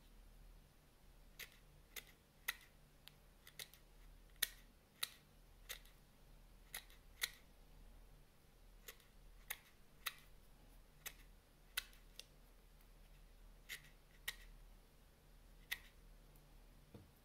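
Small titanium-coated Cuda Micro fishing-line scissors snipping green braided fishing line into short pieces: about twenty crisp snips, irregularly spaced, roughly one a second.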